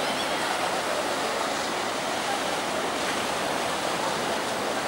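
Sea surf washing onto a sandy beach: a steady, even rushing hiss of small breaking waves.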